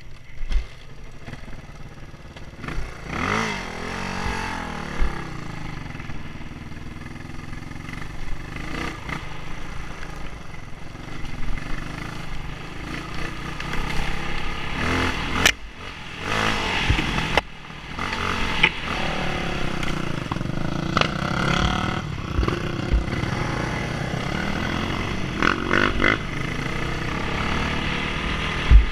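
Enduro dirt bike engine being ridden on a dirt trail, its revs rising and falling again and again as the rider opens and closes the throttle, with sharp knocks from the bike over bumps.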